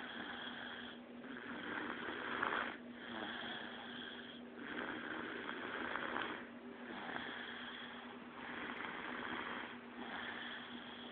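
Snoring: slow, even breaths in and out, each lasting about a second and a half, with a raspy, hissing sound.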